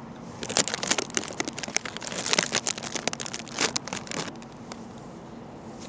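Crinkling and crackling handling noise, a dense run of irregular sharp crackles like something being handled or crumpled close to the microphone, which stops about four and a half seconds in.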